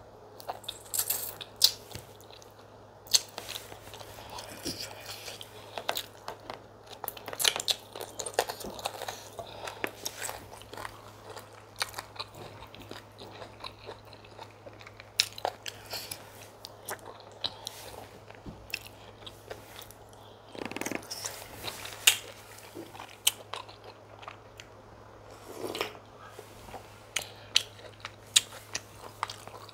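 Close-miked eating of chicken pepper soup and fufu: biting and chewing, with many sharp wet mouth clicks and smacks, over a steady low hum.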